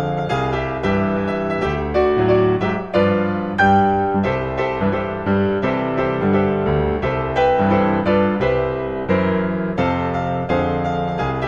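Background piano music, a steady run of struck notes and chords.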